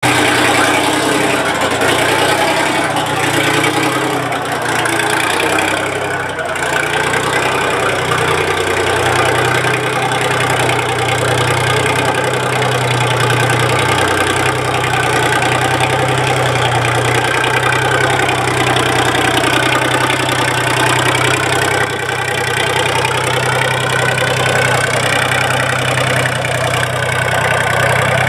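Chamberlain Super Ninety tractor's two-stroke GM Detroit Diesel engine running steadily while the tractor drives off at low speed.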